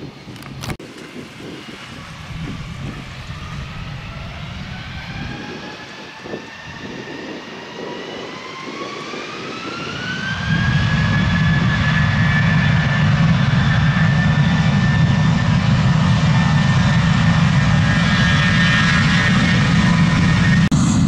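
Jet airliner engines spooling up with a rising whine. About ten seconds in they settle into a loud, steady roar at high thrust, typical of the start of a takeoff roll.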